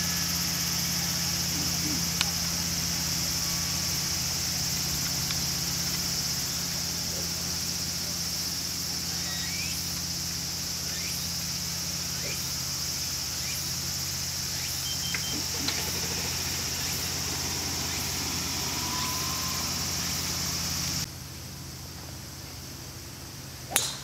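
A steady mechanical hum under a high-pitched buzz, with faint scattered chirps and ticks. Both the hum and the buzz cut off abruptly about 21 seconds in. A single sharp crack comes near the end.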